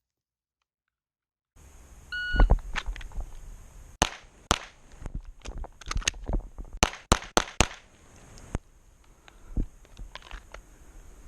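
Shot timer beeps once. Less than two seconds later a Glock 48 9mm pistol fires two quick shots, then, after a pause for the reload, a fast string of four: a timed FAST drill run.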